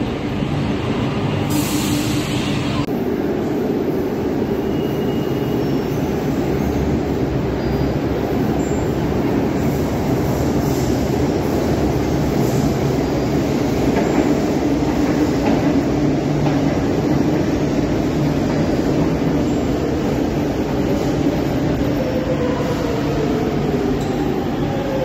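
Metro train running through an underground station, a steady rumble of wheels on rail that echoes off the station walls as it approaches and pulls in. Near the end the wheels squeal, rising in pitch.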